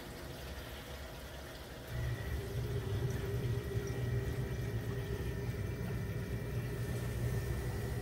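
A hydronic heating system, just switched on, with water moving through its copper pipes; about two seconds in, a machine in the system starts up and runs steadily with a low hum and a faint high tone.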